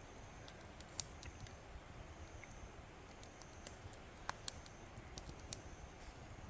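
Wood fire burning in a Coleman Fire Disc fire pit, crackling faintly with scattered sharp pops; the loudest come about a second in and again around four and a half seconds in.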